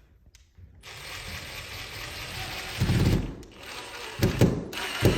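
Metal door-handle hardware being handled and fitted: mechanical clicking and rattling with several knocks, the loudest about three seconds in and more near the end.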